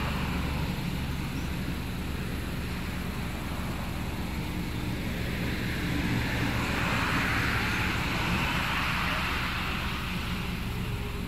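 Road traffic: vehicles passing on the road, their tyre and engine noise rising and falling, with the loudest pass about six to ten seconds in over a steady low rumble.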